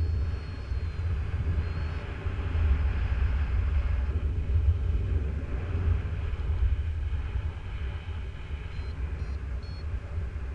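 Wind rushing and buffeting over the microphone in free flight, a steady low rumble with a hiss above it. Near the end come a few short, faint, high beeps.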